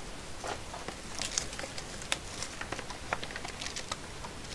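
Faint, scattered clicks and short rustles of trading-card boxes and packs being handled.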